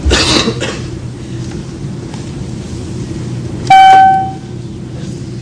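A single airliner flight-attendant call chime: one loud, bright ding about three and a half seconds in that rings out for about half a second. A steady cabin drone runs underneath, and there is a short noisy rustle at the very start.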